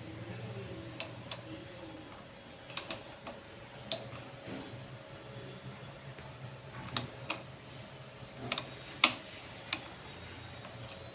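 Motorcycle handlebar indicator switch clicked several times at irregular intervals, some clicks close together in pairs, over a faint steady hum. There is no steady flasher-relay ticking, because the indicators are not working.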